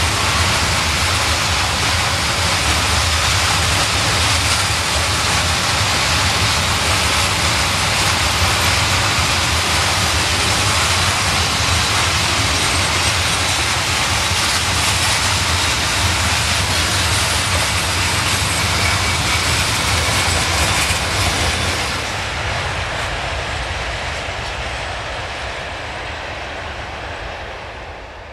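Freight train of covered hopper wagons rolling past close by, a loud steady noise of wheels running on the rails. It drops off about twenty-two seconds in and then fades out at the end.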